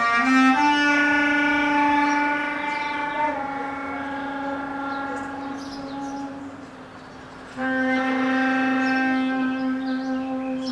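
Bass clarinet playing slow, long-held low notes. A brief step up leads into a note held for about six seconds that slowly fades, then a second loud sustained note begins about seven and a half seconds in.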